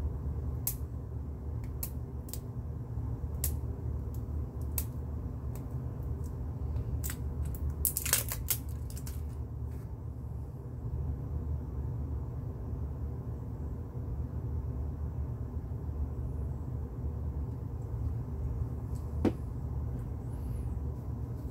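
Steady low background hum with scattered light clicks and taps, a quick cluster about eight seconds in and a single sharper tap near the end.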